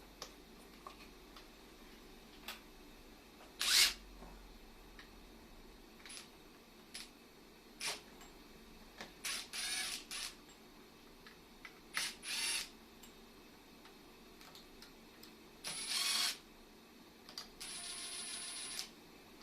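Tools and metal parts being handled while an air compressor is taken apart: scattered clicks and knocks, with several short rasping bursts. The longest burst lasts about a second, near the end.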